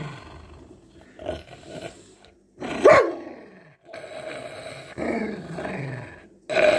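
Dog growling in short bursts over its food bowl, with one sharp bark about three seconds in and a longer, drawn-out growl after it.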